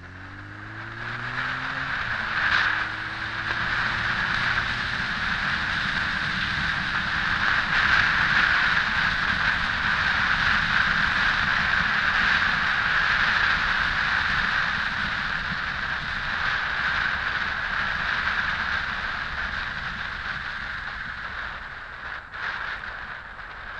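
Wind rushing over the microphone of a Honda X4 motorcycle at road speed, building as the bike pulls away and easing off near the end. At the start the bike's inline-four engine note rises as it accelerates, then is buried under the wind.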